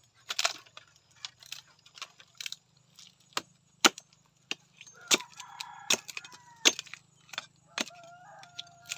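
Irregular sharp snaps and cracks of dry wood and twigs. In the second half a rooster crows, with a long held crow starting about a second before the end.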